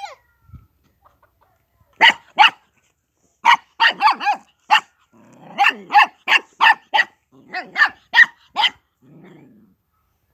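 A dog barking in quick volleys: about sixteen short barks beginning some two seconds in, with low growling between some of them and once more near the end.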